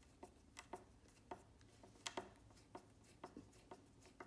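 Faint, irregular clicking and ticking of a small screw being turned by hand with a screwdriver into an ebony plug, to draw the plug out of the guitar's neck joint. The loudest clicks come as a close pair about two seconds in.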